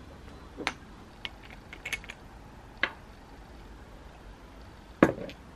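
Light clicks and taps of a glass bottle of dry oil being handled and opened, a few scattered strokes with a short cluster about two seconds in, then a louder knock near the end.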